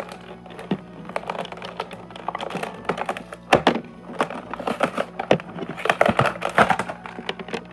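Hands opening a toy figure set's packaging: irregular clicks, taps and crinkles of the box and plastic, with a louder knock about three and a half seconds in and a busier stretch of handling near the six-second mark.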